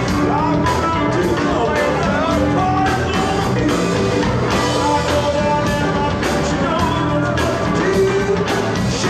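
Electric blues band playing live: electric guitars, bass guitar and drums over a steady beat, with notes bending in pitch over the top.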